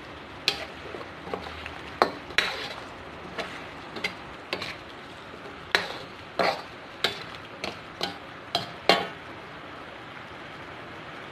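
A metal ladle scrapes and clanks against a wok as pork trotters and onions are stirred, with about a dozen sharp, uneven knocks that stop about nine seconds in. A faint steady hiss runs beneath.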